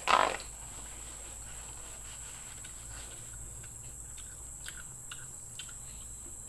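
Close-miked eating sounds: one short, loud noisy mouthful just after the start, then a few faint crisp clicks of chewing. Under them runs a steady high chirr of crickets.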